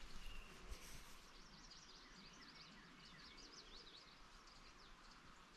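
Faint outdoor quiet filled with many short, high chirps from small birds calling, with a few light clicks in the first second.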